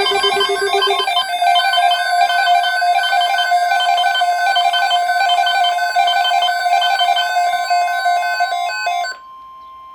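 Electronic chiming melody over a steady held note, with short repeated high notes. It cuts off abruptly about nine seconds in, and a softer single steady tone near 1 kHz follows for about a second.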